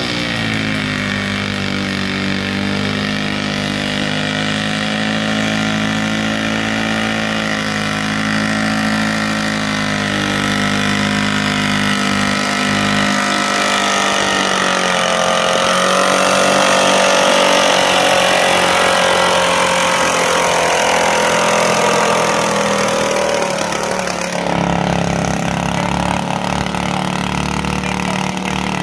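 Garden tractor engine running hard as it pulls a weight-transfer sled, its pitch sagging and rising as it labours under the load. The sound shifts suddenly near the end.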